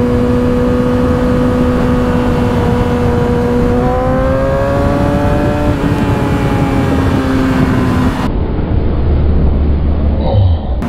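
Motorcycle engine running at a steady cruise under a rushing noise. About four seconds in its pitch rises as it accelerates, then holds. Just after eight seconds the sound cuts abruptly to a duller, deeper rumble.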